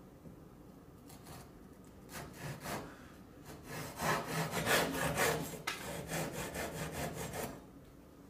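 Japanese ryoba double-edged hand saw cutting through a small wooden board on its fine crosscut teeth, in quick back-and-forth strokes. The strokes start about a second in, get louder partway through and stop shortly before the end as the corner is sawn off.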